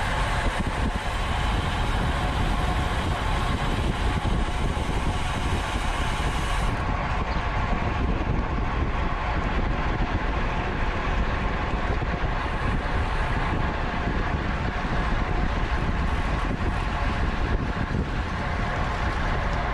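Steady rush of wind buffeting a camera microphone on a road bike at racing speed, mixed with tyre and road rumble.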